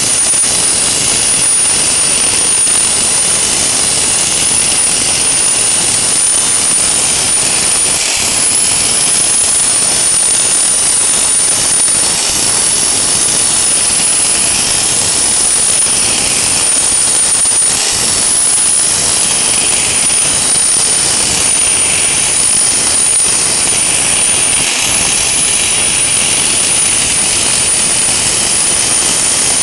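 Soda blasting nozzle hissing steadily as compressed air drives baking-soda media against an aluminum boat hull, stripping the paint. A high whistle rides on top of the hiss and wavers briefly a few times.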